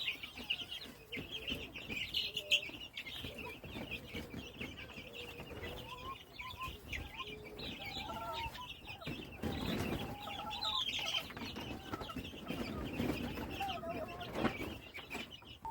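Chickens in a coop: a steady chorus of high peeping from young chicks, with lower clucking calls from the hens. About two-thirds through there is a brief burst of rustling.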